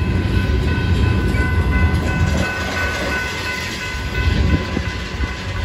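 Double-stack container well cars of a freight train rolling past close by, a steady heavy rumble of wheels on the rails with a thin steady high tone running over it.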